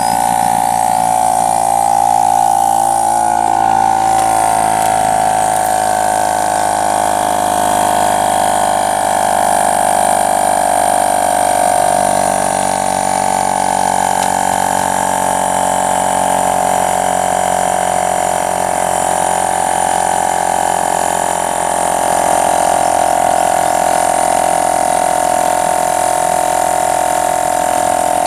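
Small Harbor Freight air compressor running steadily with a high whine, inflating a patched motorcycle inner tube. Its pitch sags slightly a few seconds in.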